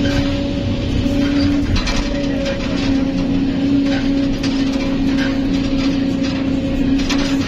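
Kobelco SK200 excavator's diesel engine and hydraulics running under load as the arm lowers and the bucket digs into sand, heard from inside the cab: a low rumble with a steady whine over it. A few brief knocks near the end.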